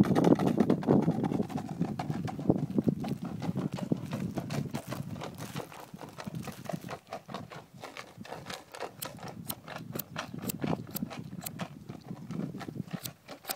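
Horse's hooves clip-clopping, busier in the first few seconds, then settling into evenly spaced strikes about two a second near the end.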